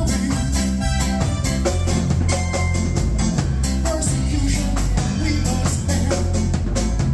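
Reggae song playing, with a heavy bass line and a steady drum beat.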